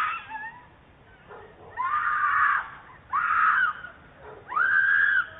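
A woman screaming in distress: three high-pitched screams, each about a second long, in quick succession.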